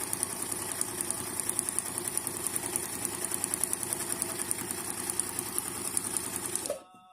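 Brother Riviera 110 sewing machine running at speed, stitching a test seam with a fast, even needle rhythm, then stopping near the end.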